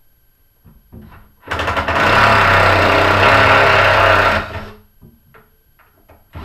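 A power drill-driver running at full speed in one burst of about three seconds, turning a screw, with a few small knocks before and after it.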